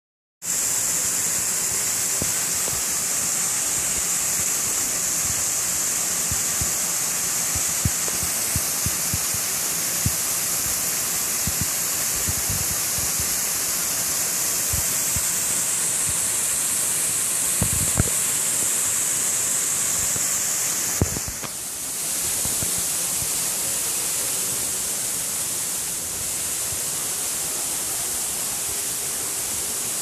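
Waterfall splashing into a pond: a steady rush of falling water that dips briefly about two-thirds of the way through and is a little quieter near the end. A few soft low thumps occur along the way.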